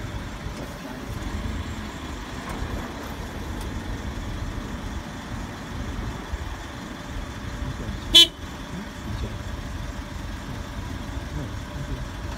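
Forklift engine running with a steady low rumble, and about eight seconds in one short, loud beep of the forklift's horn.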